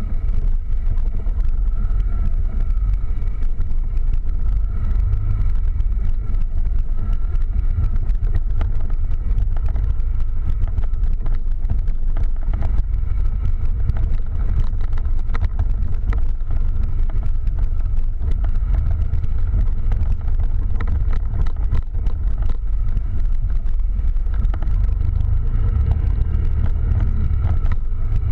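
Quad bike (ATV) engine running steadily as it is driven along a bumpy trail, with frequent short knocks and rattles from the ride.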